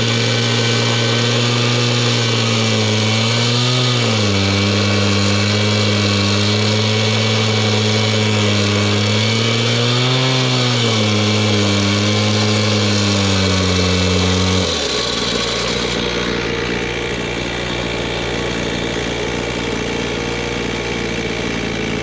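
Gas-powered concrete saw running while cutting the driveway slab, its engine note steady with two brief rises in pitch. About two-thirds of the way through, the engine tone drops away and leaves a steady rushing noise.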